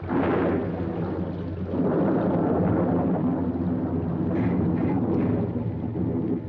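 Rolling thunder: a long, low rumble that breaks in suddenly and swells about two seconds in.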